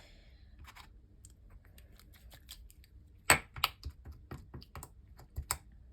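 Slime being worked by hand, giving a run of small irregular sticky clicks and pops that grow sharper and louder about halfway through.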